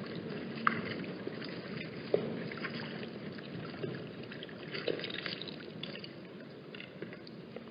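Wind buffeting the microphone as a steady rough rumble, with a few sharp clicks: about a second in, about two seconds in, and near five seconds.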